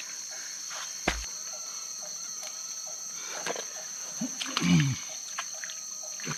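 Steady high-pitched drone of forest insects, with small splashes and clicks of water and net handling. There is a single knock about a second in and a short low sound that falls in pitch near the end.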